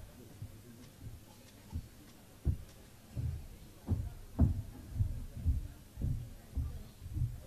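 Dull low thumps, a few scattered at first, then coming at about two a second from about three seconds in.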